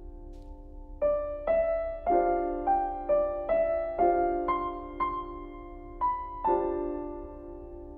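Gentle piano background music: a held chord, then a slow melody of single struck notes, about two a second, settling back onto a held chord near the end.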